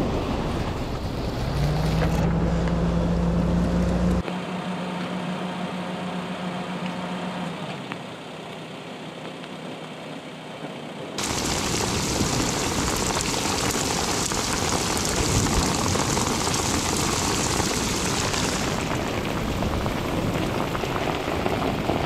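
Outdoor clips cut one after another: a steady engine hum for the first several seconds, then, about eleven seconds in, a loud, steady rushing noise of wind and rough weather.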